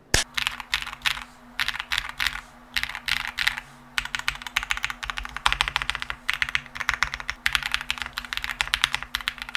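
XVX K75 Pro aluminium-cased, gasket-mounted mechanical keyboard being typed on fast: dense runs of key clacks in bursts, broken by short pauses.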